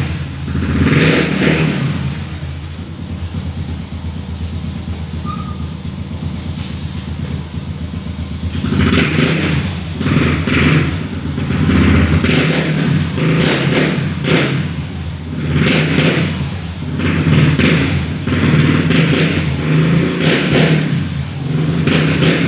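Motorcycle with an Organ Sport aftermarket power pipe exhaust running loud. It idles steadily at first, then is revved in about a dozen short throttle blips from about nine seconds in.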